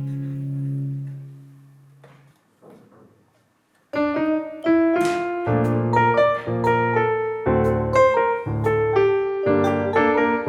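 Background music: a held chord fades out, near silence for about two seconds, then a piano melody begins about four seconds in.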